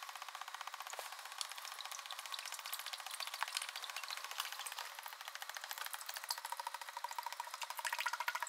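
Oil pouring in a steady stream from a plastic five-gallon bucket into a lathe's open headstock gearbox, splashing onto the gears with a fast, fluttering patter. It gets a little louder near the end.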